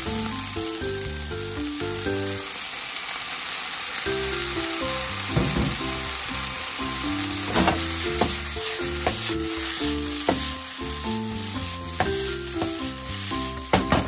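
Stir-fry of bean sprouts, garlic chives and liver sizzling in a hot frying pan while it is stirred with chopsticks. A few sharp clicks come in the second half.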